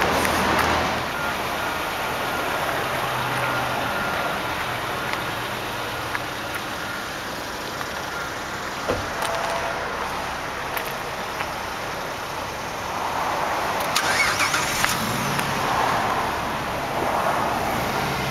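1999 Nissan Sentra's 2.0-litre four-cylinder engine idling, under a steady hiss of noise, with a few light clicks about three-quarters of the way through.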